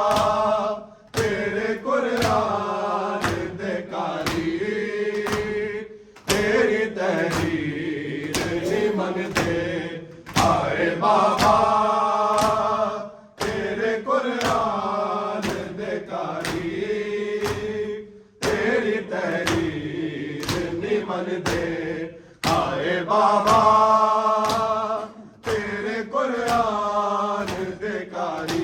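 A mourning noha chanted by male voices in Urdu/Punjabi, one phrase repeating about every six seconds. Sharp rhythmic slaps of matam chest-beating mark the beat roughly once a second.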